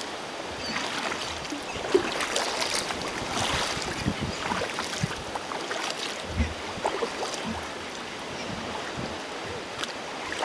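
Choppy sea water splashing and slapping against a sea kayak's hull as it is paddled, an irregular wash with frequent small splashes.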